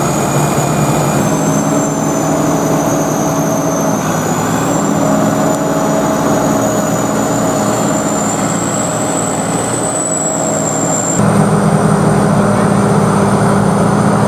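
Sakpattana corn combine harvester running, its engine and machinery giving a loud, steady mechanical din with high whining tones. The sound shifts abruptly a few times and gets louder about 11 seconds in.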